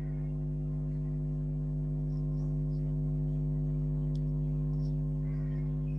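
Steady electrical hum, a buzzing drone that holds one pitch without change, with faint scratches of a marker on a whiteboard.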